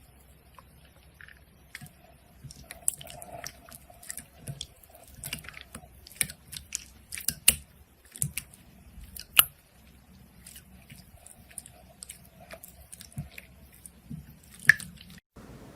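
Slime being squeezed and worked by hand, making irregular sticky clicks and crackling pops, with a few louder snaps about halfway through and near the end.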